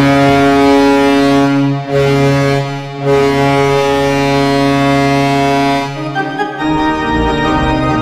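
St. Louis Blues goal horn: a deep horn sounding in long blasts, with brief breaks about two and three seconds in. About six seconds in, the horn gives way to organ-style goal music.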